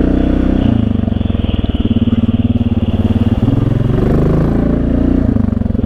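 Yamaha 686 cc single-cylinder ATV engine running at low trail speed, its pitch stepping up and down a few times as the throttle changes.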